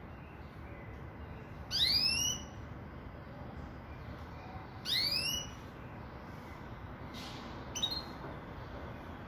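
Caged pintagol, a red siskin × Belgian canary hybrid, giving two rising call notes about three seconds apart and a shorter note near the end, over a steady low background noise.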